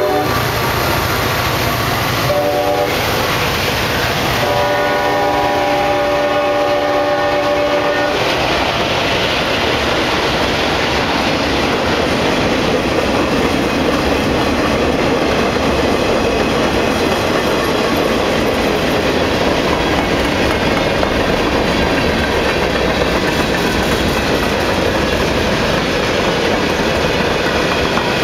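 A Nathan K5LA chime horn on a freight train sounds a few blasts, the last one long, over the EMD 645 diesels of two locomotives running at full throttle (notch 8). The horn stops about eight seconds in. The freight cars then roll past with a steady rumble and clickety-clack of wheels on rail joints.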